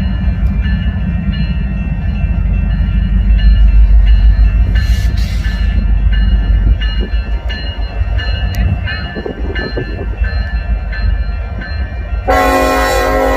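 Freight train passing close by: a heavy low rumble with regular clicks from the wheels on the rails. About a second before the end, a locomotive's multi-chime air horn starts to sound loudly.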